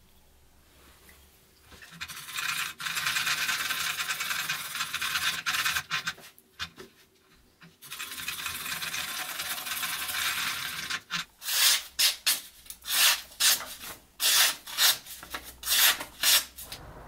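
Stone of a Ganzo guided knife sharpener scraping along a steel knife blade to sharpen its edge. First comes a run of quick continuous strokes, then from about eleven seconds in a series of separate, louder strokes at about two a second.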